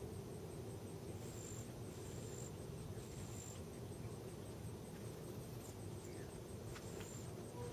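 Crickets chirping at night in a high, rapid, even pulse, with a few separate high chirps, over a steady low background noise.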